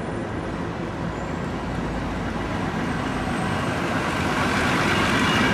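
City bus driving past on a street, its engine and tyre noise growing steadily louder as it comes close.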